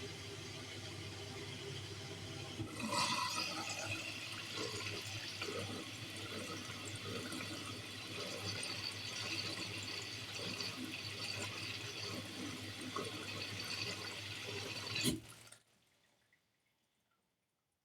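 Bosch Series 4 washing machine filling with water for a rinse: a steady low hum, then water rushing and splashing in from about three seconds in. About fifteen seconds in, the water and hum cut off with a click as the fill stops.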